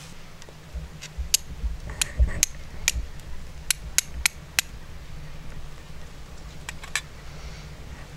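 Flint struck against a fire steel: about a dozen sharp, high clinks in quick irregular runs, with a pause before a last short burst of three.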